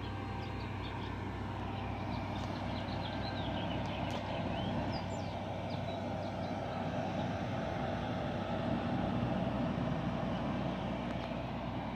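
Electric food dehydrator running, its fan making a steady hum, with a few faint bird chirps around the middle.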